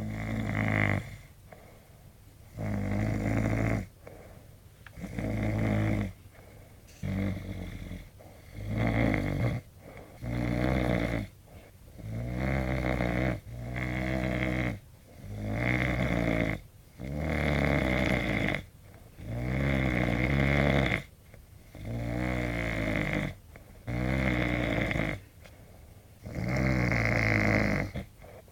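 A man snoring in his sleep: loud snores one after another, about one every two seconds, with short quiet gaps between them.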